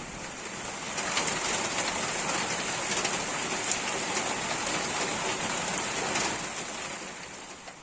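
Rain falling steadily: a dense hiss with scattered sharper drop sounds, growing fainter near the end.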